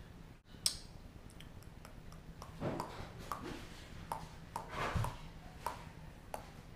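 Faint, scattered clicks and knocks in a quiet room: one sharp click near the start, then a run of short taps and light knocks.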